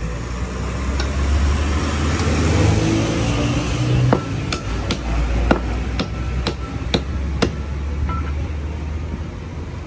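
Meat cleaver chopping beef on a wooden chopping stump: about eight sharp chops, roughly two a second, starting about four seconds in. A low rumble runs underneath.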